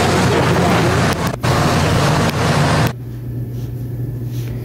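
Hitachi excavator working on a house demolition: a loud, steady engine rumble with a rush of noise. About three seconds in it cuts off abruptly, leaving a fainter, steady low hum.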